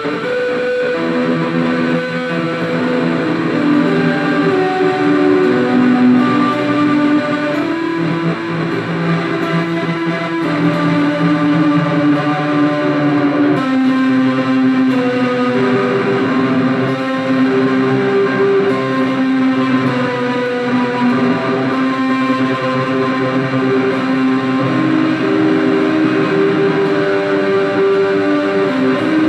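Electric guitar played slowly and freely through ambient reverb and delay pedals into an Orange Crush 35RT solid-state amp on its overdrive setting, its notes sustaining and overlapping into a wash.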